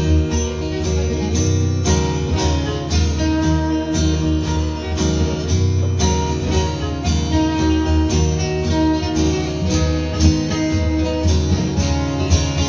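Two amplified acoustic guitars playing an instrumental passage of a folk-rock song, plucked and strummed with a full low end, and no singing.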